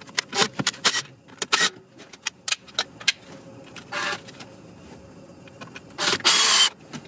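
Cordless right-angle power tool working on the corroded bolts of a coolant valve bracket: knocks and clicks as it is fitted onto a bolt, then short bursts of the tool running, a brief one about four seconds in and a longer, louder one just after six seconds.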